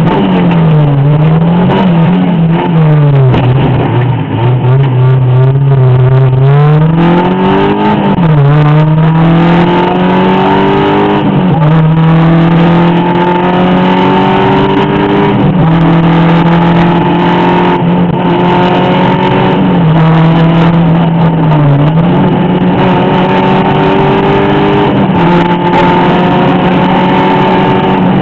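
Rally car engine driven hard on a special stage. The revs swing up and down over the first few seconds, then climb steadily and drop back sharply at each gear change, every three to four seconds.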